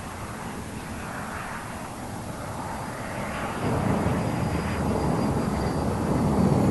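Jet aircraft noise, a steady rush that swells into a louder low rumble about three and a half seconds in, with a faint high whine falling in pitch near the end.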